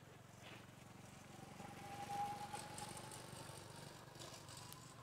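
Faint engine sound of a passing motor vehicle, with a thin steady whine over a low drone; it swells to a peak about two seconds in and then fades.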